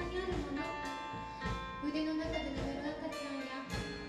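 A live pop-rock band playing: drum kit, electric bass, keyboard and guitar, with a woman singing lead into a microphone. Drum hits land regularly through the music.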